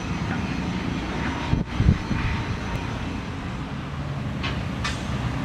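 Heavy excavators working, their diesel engines humming steadily. There is a loud low thump about two seconds in and a few sharp metallic clinks near the end.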